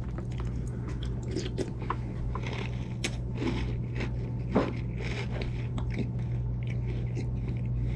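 A mouthful of grain-free protein cereal with milk being chewed, with many small irregular crunches. A steady low hum runs underneath.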